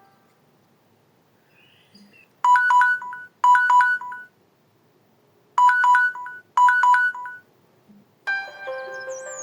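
Samsung Galaxy Feel built-in phone tone: four short bursts of quick, bright electronic notes, in two pairs with a pause between them. A different tone starts near the end.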